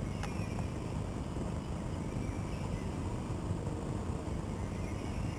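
Steady low rumble of wind on the microphone ahead of a thunderstorm's gust front, with a few faint bird chirps and a single click just after the start.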